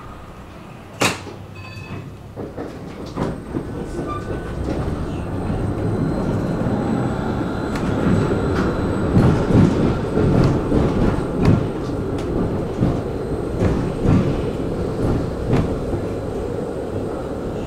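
Tram running on rails and getting louder as it picks up speed, wheels knocking rhythmically over rail joints. There is a single sharp clank about a second in.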